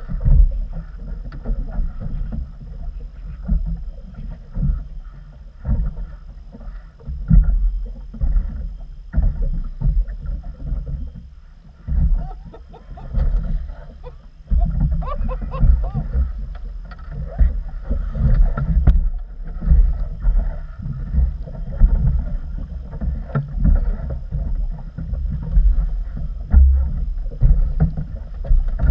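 Wind buffeting the microphone and water slapping against the hull of an inflatable boat, an uneven low noise that surges and drops every second or so.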